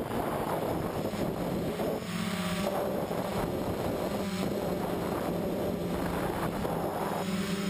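Quadcopter's electric motors and propellers whirring in flight, heard from a camera on the frame, the hum shifting in pitch every second or so as the throttle changes, with wind rushing over the microphone.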